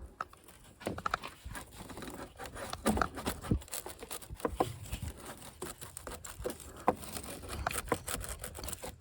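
Irregular clicks, taps and rustling of hand work with tools and parts, with no engine running.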